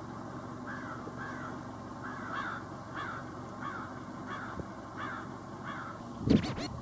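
Crows cawing, a run of about ten caws at roughly two a second, then a loud sudden sound about six seconds in.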